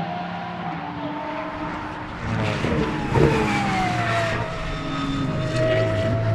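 Pagani Huayra R Evo's naturally aspirated 6.0-litre V12 running at speed on track. It gets louder about two seconds in, with a sharp peak about three seconds in, and then its pitch falls away.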